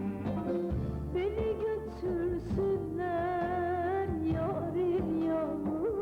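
Turkish pop song: a voice singing a wavering, ornamented melody over sustained instrumental backing.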